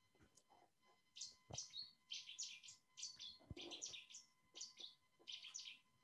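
Faint recorded song of a Cetti's warbler: short, rapid clusters of high, sharp notes, beginning about a second in and repeating in quick succession.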